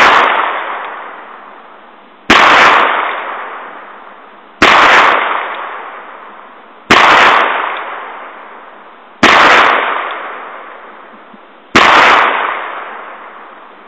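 A Ruger Single Six revolver firing .22 Magnum rounds: five shots a little over two seconds apart, each sharp and loud and fading out slowly over the next two seconds, with the tail of a shot fired just before still fading as the sound begins.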